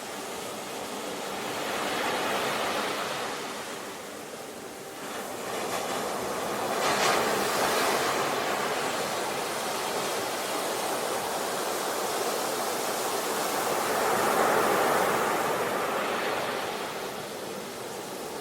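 Ocean waves washing onto the shore, the surf swelling and falling three times, with the sharpest break about seven seconds in.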